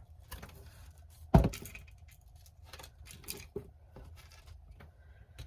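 Small craft supplies and hardware being handled and rummaged through: scattered light clicks and rustles, with one sharp knock about a second and a half in.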